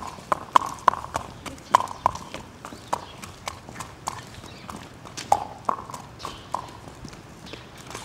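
Hoofbeats of a two-year-old black Oldenburg stallion trotting in hand on a paved yard: sharp, ringing clip-clops, two or three a second, dying away near the end.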